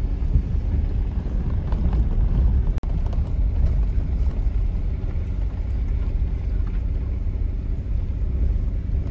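Vehicle driving on a dirt road, heard from inside the cab: a steady low rumble of engine and tyres, with a few light ticks about two to four seconds in.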